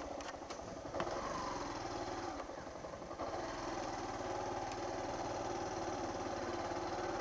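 Motorcycle engine running at low road speed, easing off briefly about two and a half seconds in, then steady.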